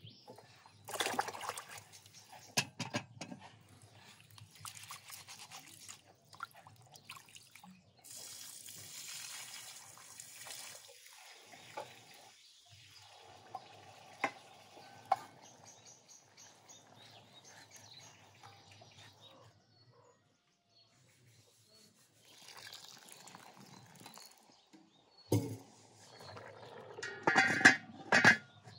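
Cooking handling sounds: scattered knocks and clicks, with some pouring and liquid sounds. Near the end comes the loudest part, a heavy cast-iron lid being set onto a cast-iron pot with a loud metallic clank.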